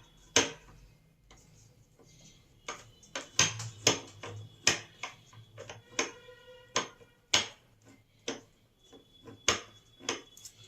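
Irregular sharp clicks and knocks of metal tools and angle grinder parts being handled on a workbench, about fifteen in all, one around the middle leaving a brief metallic ring.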